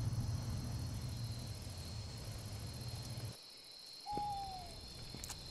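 Steady high chirring of night insects such as crickets over a low rumble that stops suddenly about three seconds in. About a second later comes a single owl hoot that slides down in pitch, then a few faint ticks.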